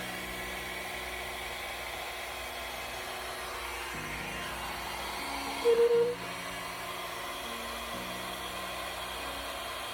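Steady whirring hiss of a small motor or blower. Under it, faint held low notes change about every four seconds, like soft background music. About six seconds in, a short loud high tone pulses three times.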